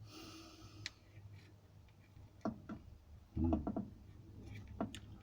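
A few scattered clicks and knocks, the loudest a dull cluster of knocks a little past the middle, over a low steady hum.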